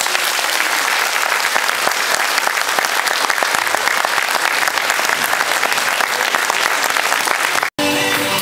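Audience applauding steadily. Near the end the clapping cuts off abruptly and music starts.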